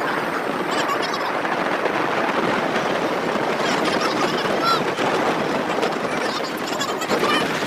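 Steady rush of a vehicle travelling along a road: engine, tyre and wind noise with no change in pace, and a few faint short high chirps over it.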